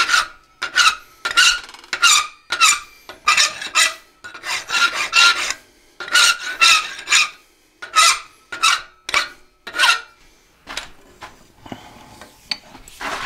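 A hand file rasping across a hot high-carbon steel heart clamped in a vise, in quick push strokes about two a second, each stroke with a squeaky ring. The filing stops about ten seconds in, leaving only faint light clinks.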